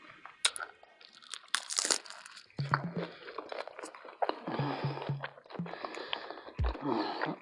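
Close-miked eating of a plant-based Philly steak burrito: biting and chewing heard as a run of sharp mouth clicks and short noisy bursts.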